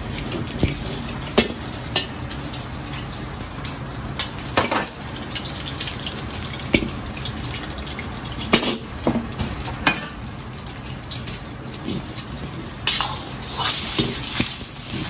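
Food sizzling in a hot pan, with a steady hiss and irregular sharp clinks and scrapes of a metal utensil against the pan as it is stirred, more of them near the end.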